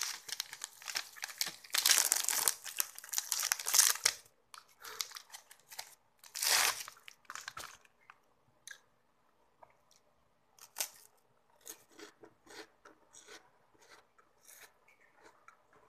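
Plastic wrapper of an Oishi Wafu wafer stick crinkling and tearing as it is opened, loudest in the first four seconds, with another burst about six and a half seconds in. In the second half the crisp rolled wafer stick is bitten and crunched in short, sparse crackles.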